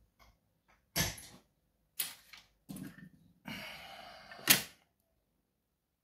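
Handling noises from a small metal cam lock and its picks on a desk: a few separate knocks about a second apart, a stretch of scraping, then one sharp click, the loudest sound.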